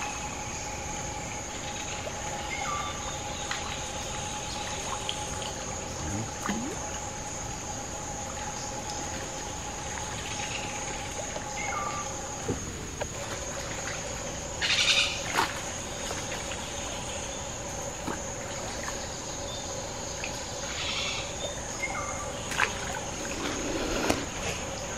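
Water splashing and dripping as a cast net is handled in a shallow creek, with scattered short splashes, the loudest about fifteen seconds in. A steady high insect trill runs under it.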